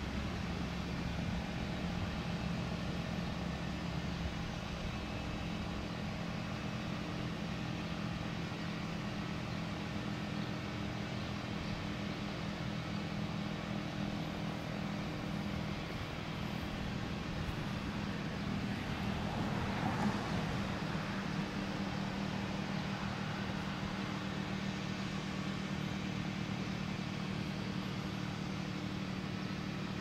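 Federal Signal STH-10 siren coasting down after its test: the slowing rotor gives a low, steady drone, minutes into its very long wind-down.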